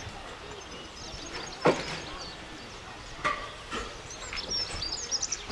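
Birds chirping over the steady hiss of a BR Standard Class 4 tank steam locomotive standing with steam leaking, with one sharp clank about one and a half seconds in and two lighter knocks a little after the halfway point.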